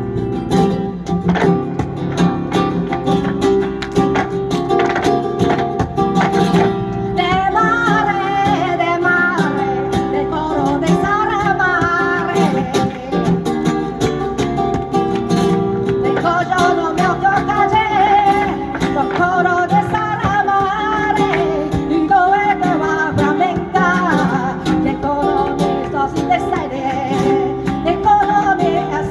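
Live flamenco music: acoustic guitar playing, with a singer's wavering, ornamented cante coming in about seven seconds in and carrying on, over frequent sharp percussive strikes.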